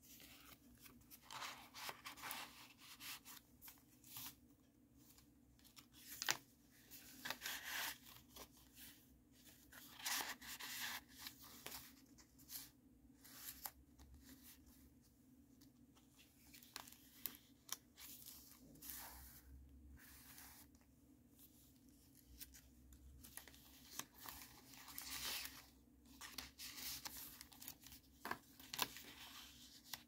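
Faint paper and card rustling and sliding as the pages and inserted cards of a handmade junk journal are turned and handled, in irregular bursts, with a couple of sharp ticks about six seconds in and near the end.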